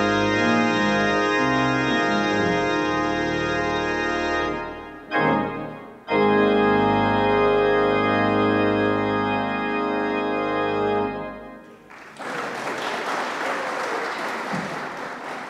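Pipe organ playing the closing chords of the postlude: held full chords, a short chord about five seconds in, then one long final chord that cuts off. Applause starts about a second later.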